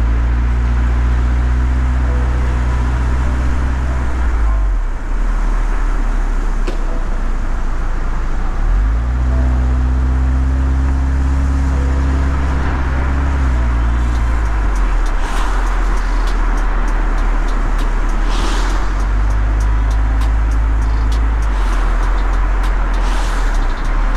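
City road traffic on a wet street, cars passing with tyre hiss that swells a few times in the second half, over deep held bass notes that change every few seconds.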